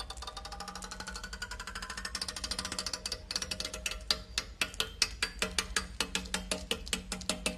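Scissors snipping through the teeth of a black plastic comb one after another: a rapid run of small clicks whose ringing tone rises in pitch over the first few seconds, then louder, sharper snips about three a second.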